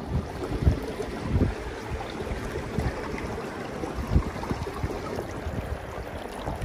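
Wind rushing steadily and buffeting the microphone in gusts, with several low thumps.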